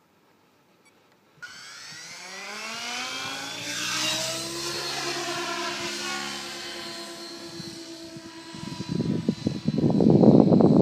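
Synergy E7SE electric RC helicopter spooling up: its motor and rotor whine starts suddenly and rises in pitch, then holds steady as it flies. Near the end a loud, ragged rumble takes over.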